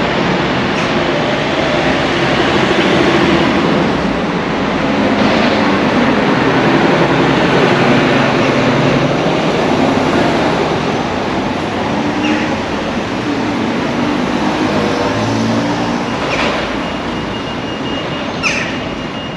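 Loud, steady rumble of a passing vehicle, with a thin high tone and a few sharp clicks coming in near the end.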